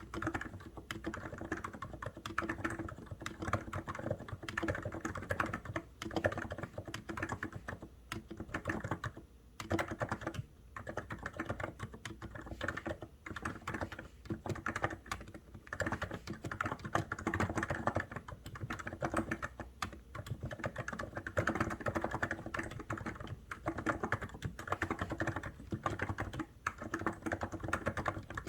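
COX Endeavour keyboard being typed on: fast, continuous runs of keystrokes with a couple of short pauses.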